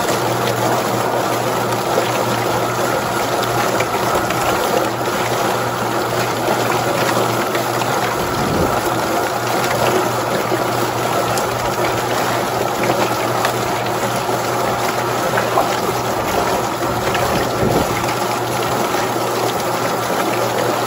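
Drum-style chicken plucker running: its spinning floor tumbles scalded chickens against rubber plucking fingers under a steady spray of water, with a steady motor hum beneath the splashing.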